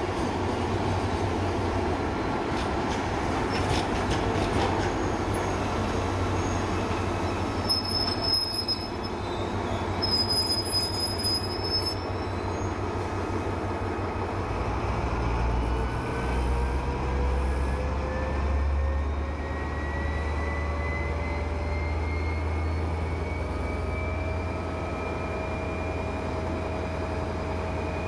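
SNCF CC 72000-class diesel locomotive arriving with its train, brakes squealing high twice about eight and ten seconds in as it slows to a stop. Once stopped, its diesel engine hums deeply while a whine rises slowly in pitch.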